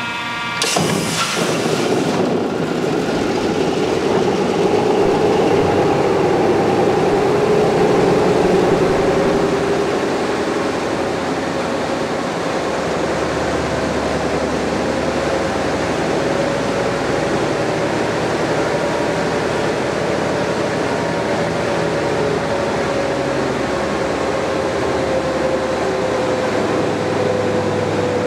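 Large stationary diesel engine driving a Fairbanks-Morse generator, running with a steady heavy drone and a held whine. A brief loud rush of noise comes about a second in, as the engine's control lever is worked.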